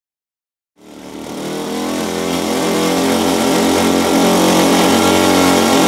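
Twin O.S. 30 cc engines of a radio-control scale Cessna 310 running in a steady drone. The sound starts about a second in and grows louder over the next two seconds, then holds steady.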